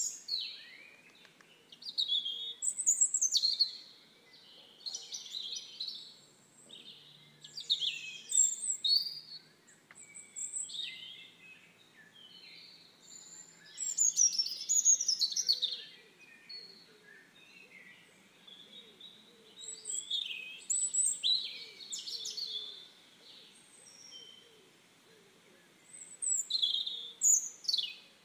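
Songbirds singing: phrases of quick chirps and whistles coming every couple of seconds, over a faint steady hiss.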